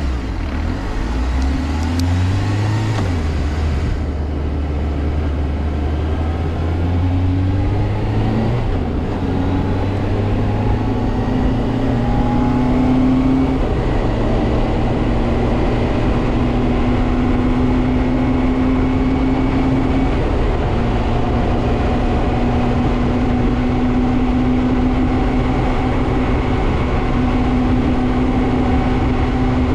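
Suzuki GSR400 inline-four motorcycle engine on stock exhaust, pulling through the gears: its pitch climbs and falls back at each of about three upshifts in the first half, then holds nearly steady while cruising, with road and wind rush underneath.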